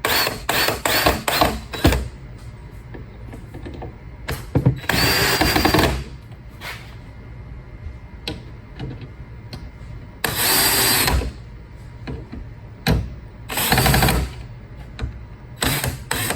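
Cordless power drill or screwdriver driving screws to mount a sweeper's rear brush motor: a few short pulses at first, then three runs of about a second each with a steady high motor whine.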